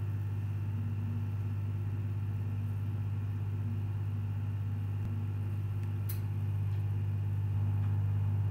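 Steady low hum that grows slightly louder near the end, with a single faint click about six seconds in.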